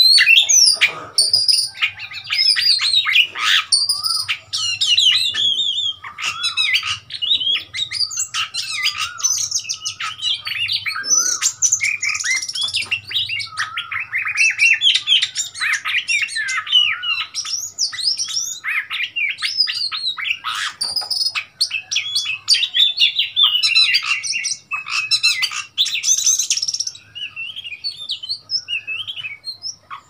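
Oriental magpie-robin singing a fast, varied run of whistles and chattering notes with hardly a pause, thinning out to a few scattered notes near the end.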